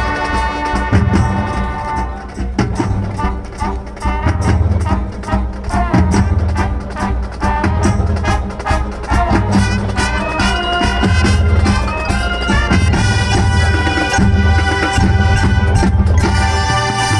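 Marching band playing: brass sustains chords and melody lines over a steady drum beat.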